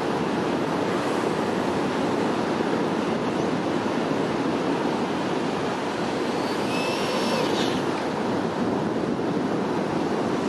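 Steady rush of surf breaking on the beach, with wind on the microphone. About seven seconds in comes a brief high whine from the brushless electric motor of a Traxxas E-Maxx RC monster truck running on a 6S battery.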